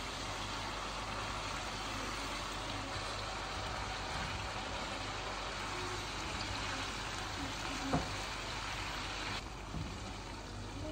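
Masala gravy with chicken seekh kebab pieces sizzling in a pan on a gas burner while being stirred with a silicone spoon. A single short knock comes about eight seconds in, and the sizzle softens a little just after nine seconds.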